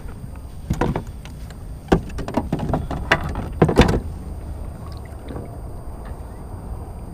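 A cluster of knocks, taps and clatter against a plastic fishing kayak as something is handled in the angler's lap, most of it in a burst from about one to four seconds in. A steady low rumble runs underneath.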